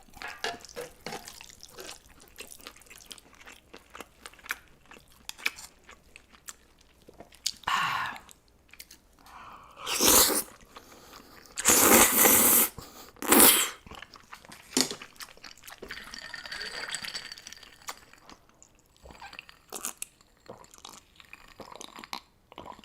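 Close-miked eating: steady chewing with small wet clicks and several louder crunching bites about eight, ten, twelve and thirteen seconds in.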